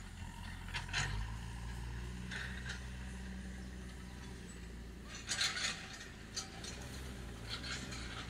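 An engine running steadily at low revs, with a few short bursts of clattering or scraping noise about a second in and again around five seconds in.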